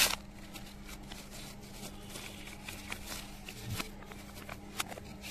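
Paper rustling and crinkling in the hands as a folded sheet is handled, played backwards. The rustling comes as scattered light clicks, with a sharper click at the very start, over a steady low hum.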